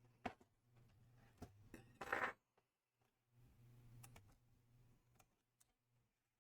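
Faint handling of plastic laptop parts: a sharp click, a few lighter clicks, and a brief scrape about two seconds in, over near silence.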